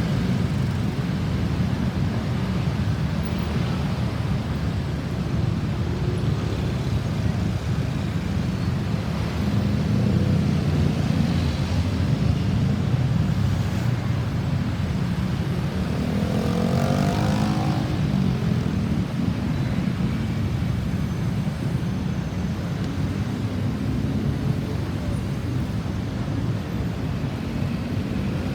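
Steady low rumble of vehicle engines and road traffic, with one passing vehicle briefly louder, its pitch rising and falling, about two-thirds of the way through.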